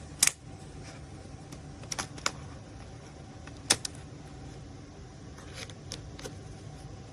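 Small magnetic cubes clicking and snapping together in the hand: about eight sharp, irregular clicks, the loudest about a quarter second in and just past the middle, over a steady low hum.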